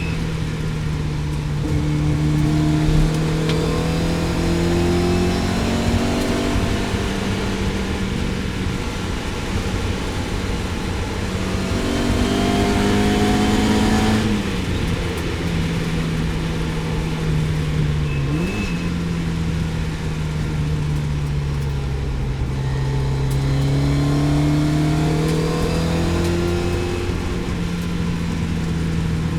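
Lotus Elan GTS race car's engine running at speed on track. Its pitch climbs through several pulls under acceleration and drops sharply about halfway through as it slows, with a steady drone between.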